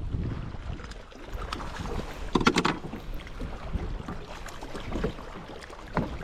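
Wind buffeting the microphone on an open boat, with a short rattling clatter about two and a half seconds in.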